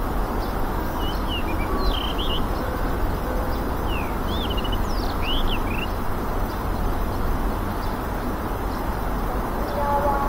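Small birds chirping in short, quick, sweeping calls, scattered through the first few seconds and again near the end, over a steady low rushing background noise.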